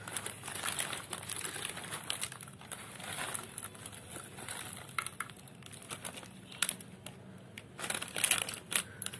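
Crinkling of a foil-lined plastic snack packet as it is handled and tipped out over a plate of puffed snack rings, in irregular crackles that bunch up louder near the end.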